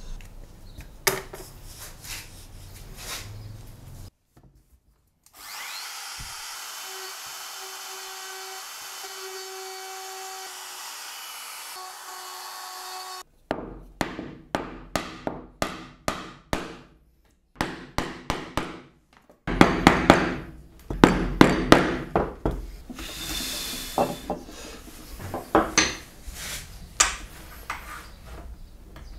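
Woodworking on a walnut slab. A small power tool runs steadily for about eight seconds, then a chisel cutting a butterfly-key recess is driven with a long run of sharp blows, several a second and heaviest about two-thirds of the way through.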